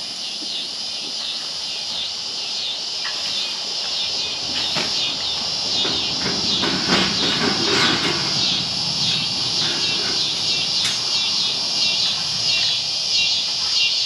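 Loud, high-pitched insect chorus drone that pulses in a steady rhythm, with a few scattered knocks.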